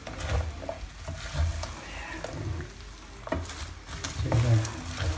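Red silicone spatula stirring caramel-coated popcorn in a small nonstick frying pan: the sticky kernels rustle and scrape, with scattered clicks of the spatula knocking the pan.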